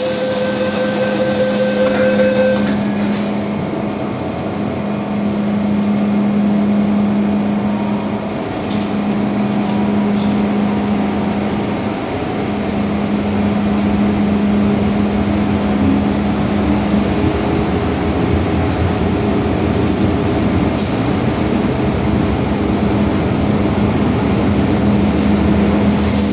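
MTR M-Train metro carriage in motion, heard from inside: steady running noise of wheels on rail with a low hum throughout. A brief high hiss and tone come in the first couple of seconds.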